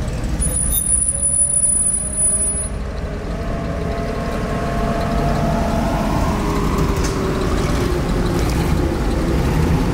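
Engines of WW2-era military vehicles running in a moving convoy: a deep, steady rumble, with an engine note that climbs slightly and then drops in the second half.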